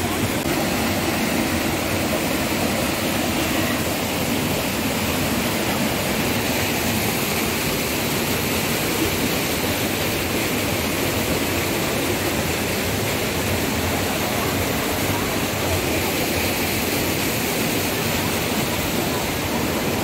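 Steady rush of a stream's water cascading over rocks at a waterfall.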